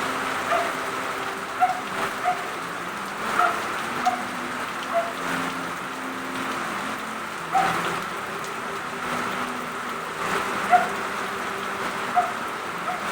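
Heavy rain falling steadily on a hard surface, with louder individual drops or drips landing every second or so.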